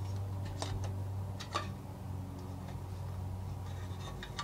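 Scattered small clicks and taps from a plastic squeeze bottle of epoxy hardener being squeezed into a small mixing cup, over a steady low hum.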